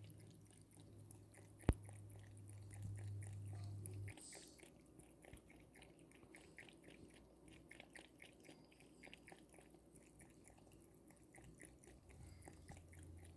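Domestic cat lapping water from a bowl: a long run of soft, quick, regular licks, several a second. A single sharp click comes about two seconds in, and a low hum sounds through the first few seconds.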